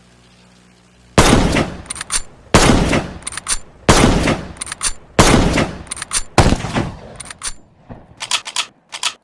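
Springfield M1903 bolt-action rifle fired five times, about 1.3 seconds apart, each shot ringing out and followed by a couple of sharp metallic clicks from the bolt. Near the end, quieter bolt and mechanism clicks come in small clusters with no shots.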